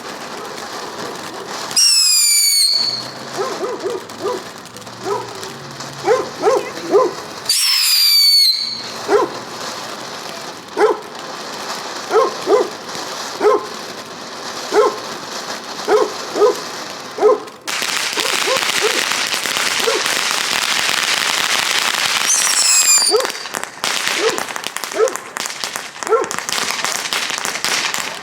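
A dog barking over and over while fireworks go off: three high whistling fireworks, each a short falling whistle, and from about two-thirds of the way through a steady dense crackle of firecrackers.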